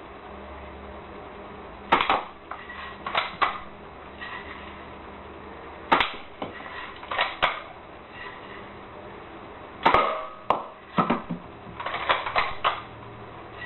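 A 1938 Daisy Red Ryder BB gun firing three sharp snaps about four seconds apart, each followed by shorter clicks and knocks as BBs strike and knock over cans and bottles about 20 feet away.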